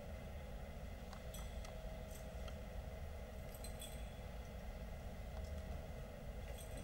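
Faint, scattered metallic clinks of a censer (thurible) on its chains being handled and swung, over a low steady room hum.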